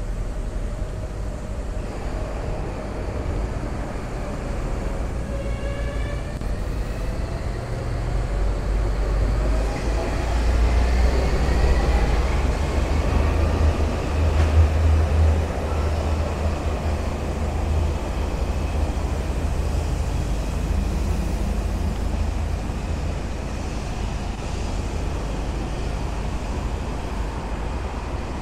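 A passing electric rail vehicle: a low rumble builds to its loudest about halfway through, under a motor whine that glides steadily upward in pitch, then fades back into street noise.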